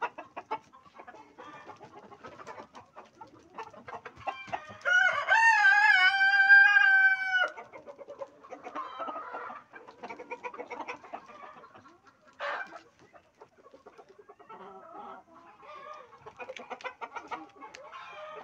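Flock of Australorp chickens clucking, with a rooster crowing once, a long call about five seconds in, and a brief loud squawk a little after halfway.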